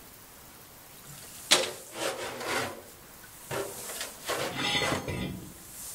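Four rough scraping or rubbing strokes against a surface, the first opening with a sharp knock about a second and a half in.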